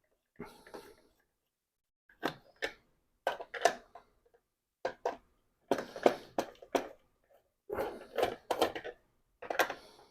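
Bursts of small clicks and clatter from a Phillips screwdriver and the plastic case of an Atari 5200 controller being worked open, several short bursts with pauses between.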